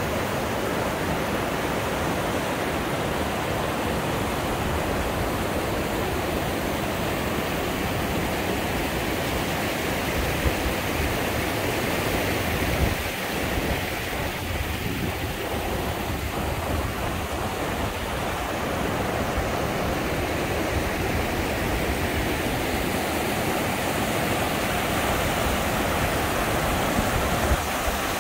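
Mountain creek rapids rushing steadily over flat rock ledges: a continuous roar of whitewater, slightly softer for a few seconds about halfway through.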